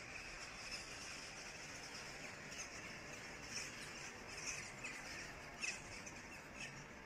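Calls of a large flock of birds in flight: short, sharp high calls scattered over a steady hiss, the loudest about five and a half seconds in.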